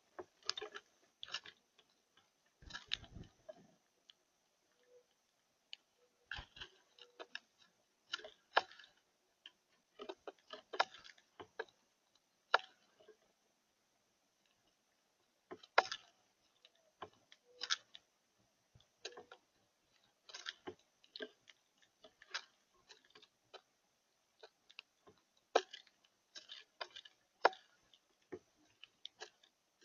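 Birds pecking at seed at a feeder: scattered, irregular sharp clicks and taps, a few every second or two, with short gaps between.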